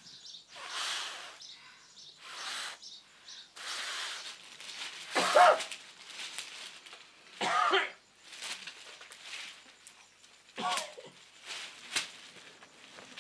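A piece of paper held taut against the lips and blown like a reed, giving a string of short raspy buzzing blasts. About seven blasts, some with a wavering pitched honk; the loudest comes about five seconds in.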